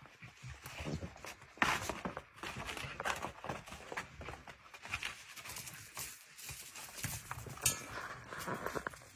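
A Cardigan Welsh Corgi puppy scuffling and pattering about, with irregular knocks and rustles. A short high-pitched call comes near the end.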